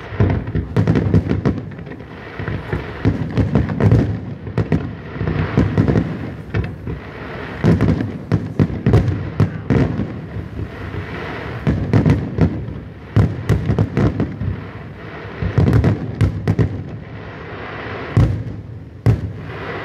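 Aerial firework shells bursting in quick succession: many overlapping sharp bangs, with a crackling hiss filling the gaps between them.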